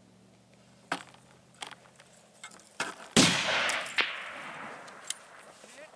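A hunting rifle shot about three seconds in, with a long echoing tail that rolls off the canyon walls and dies away over about two seconds. Before it come a few sharp clicks. This is the follow-up shot at the buck, and the hunters soon call it a hit.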